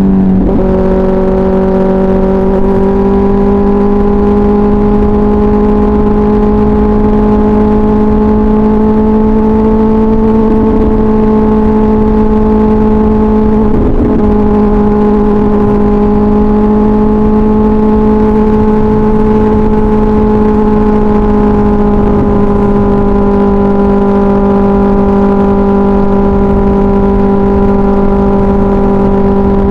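2024 Kawasaki Ninja ZX-6R's 636 cc inline-four running through an SC Project exhaust at steady cruising revs, its pitch shifting briefly at the start and then holding nearly level.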